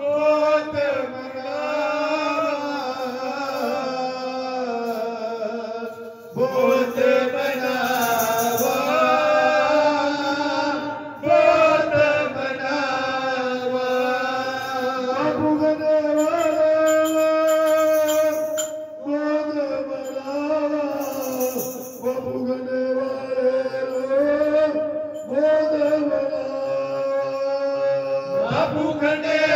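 A group of men singing Sikh kirtan together in long held, chant-like phrases, with the brass jingles of chimtas shaken along.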